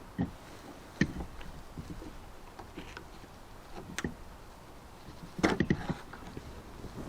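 Scattered clicks and knocks of hand tools and metal lock parts inside a car door being taken apart, with a louder cluster of rattling clicks about five and a half seconds in.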